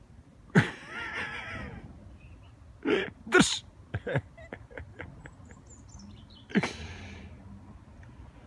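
Hand-held Fox Call predator whistle blown in about five short, loud squeals, each falling in pitch, with a few faint ticks about halfway through. The squeals are a lure meant to draw urban red foxes in close.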